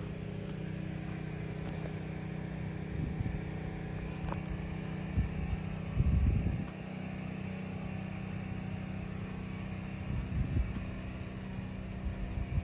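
Mack RD688S dump truck's diesel engine idling steadily, with a few low gusts of wind on the microphone, the strongest about six seconds in.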